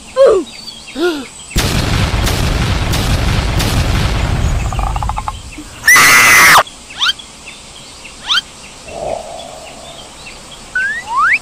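Cartoon sound effects: after two short squeaky cries, a burst of gunfire with several sharper cracks runs for about three seconds. A loud shrill cry follows around six seconds in, then birds chirp in short rising calls.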